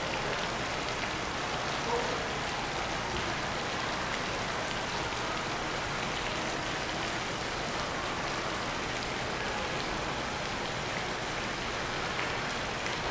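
Steady, even hiss of moving water.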